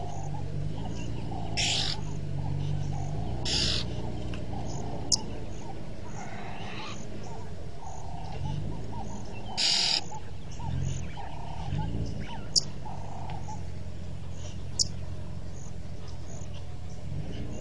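Wild birds calling: a soft low note repeats about once a second, with three louder harsh calls and a few short sharp chirps over a steady low hum.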